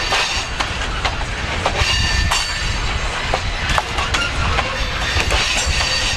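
Freight train boxcars rolling past close by: a steady rumble of steel wheels on rail, broken by irregular clicks as the wheels cross rail joints, with a faint thin squeal from the wheels.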